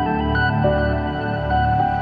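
Ambient music: sustained chords held over a deep, changing bass.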